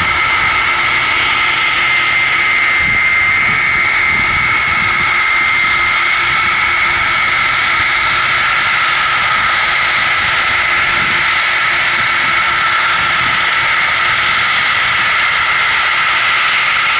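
Jet engines of a Boeing 747-400F freighter running, a loud, steady high whine over a roar of engine noise.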